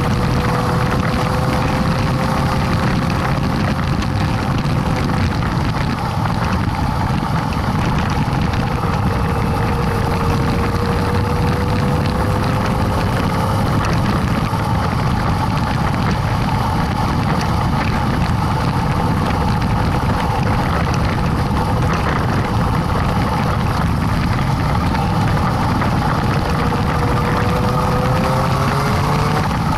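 Motorcycle engine running at a steady cruise under heavy wind noise, its pitch drifting slightly and rising near the end as it speeds up.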